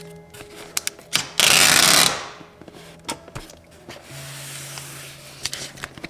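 A handheld scraper blade pushed hard across a paper label: one loud rough scrape lasting well under a second, about a second and a half in, among a few light clicks and taps, over background music.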